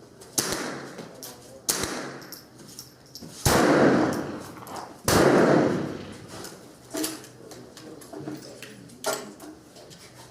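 GSG STG44 .22 LR rifle firing single shots of Remington Golden Bullets: four shots at uneven intervals, the last two loudest with a long ringing tail, then two lighter clicks later on. The broken rhythm fits the ammunition's frequent duds.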